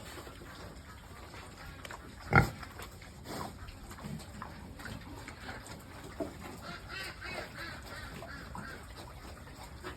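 Farm pigs grunting and squealing, with one short loud call about two and a half seconds in and a run of quick high calls later on.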